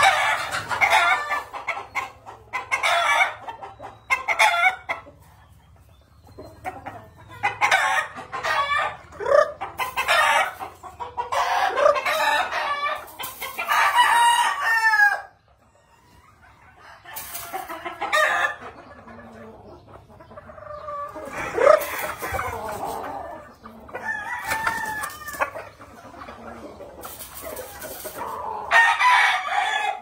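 Gamefowl roosters crowing again and again, some crows overlapping, with clucking in between.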